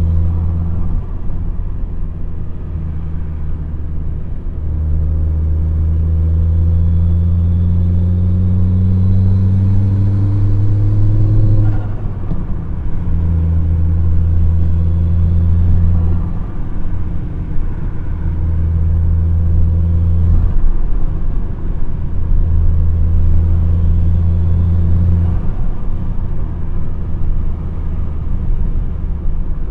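Volvo S60 2.0T's turbocharged engine running through a straight-pipe exhaust with two hi-flow mufflers and no catalytic converter, heard on the move. Its pitch rises steadily under acceleration until about twelve seconds in, where it breaks off sharply. After that it runs in three steady stretches, each ending in a short drop, as the throttle comes on and off.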